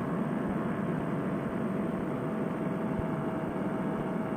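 Fresh Breeze Monster paramotor's two-stroke engine and propeller running steadily in cruise flight: a constant drone mixed with wind rush, with a faint steady tone over it.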